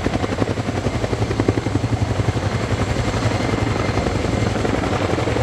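Military helicopter in flight, its rotor beating in a fast, even chop over a steady low engine hum.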